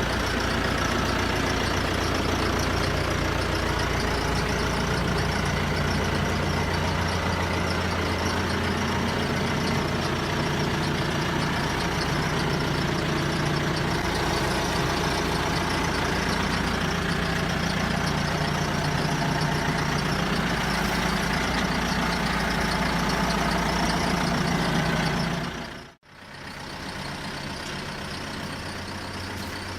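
Truck engine idling steadily with a low drone. Near the end the sound cuts out abruptly for a moment and comes back quieter.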